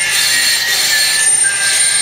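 Loud, harsh high-pitched screeching layered with sustained shrill tones, from the horror soundtrack of the video playing on the tram's on-board monitors.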